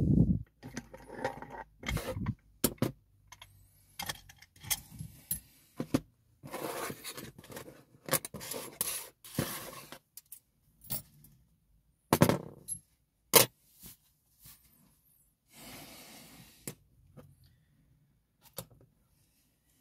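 Irregular metallic clicks, clinks and short scrapes from handling a freshly picked-open GOAL P lock and the metal picking tools.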